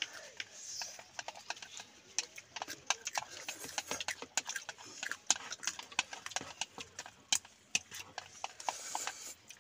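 Close-up eating sounds: wooden chopsticks clicking and scraping against plastic bowls in quick, irregular taps, with slurping and chewing of spicy instant noodles.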